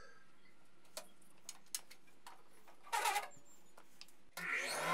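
A few light clicks and taps of small wooden blocks being handled on a table saw's cast-iron top, then near the end the table saw motor switches on and spins up, its pitch rising to a steady running hum and whine.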